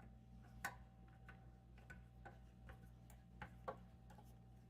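Faint, irregular small clicks and ticks of a screwdriver and small screws being fitted into an Xbox Series S chassis, over a low steady hum.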